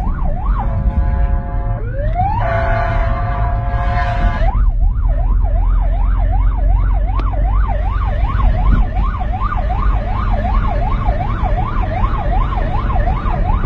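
Emergency-vehicle siren, changing pattern: a few slow rising sweeps and long held tones for the first four seconds or so, then a fast up-and-down yelp about twice a second for the rest. A steady low rumble runs underneath.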